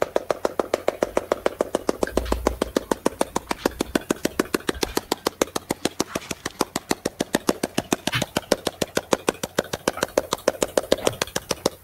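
Military helicopter of the Black Hawk type hovering low, its main rotor beating in a fast, even chop over the turbine's running.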